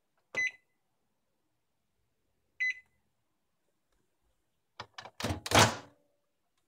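Microwave oven keypad beeping twice, a couple of seconds apart, each a short high beep. Near the end come a few sharp clicks and then a louder, brief clattering knock.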